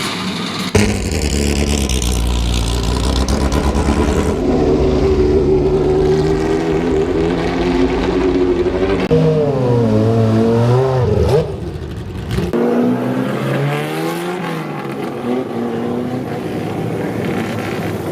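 Classic racing car engines running and revving, the pitch rising and falling sharply near the middle. The engine sound changes abruptly several times.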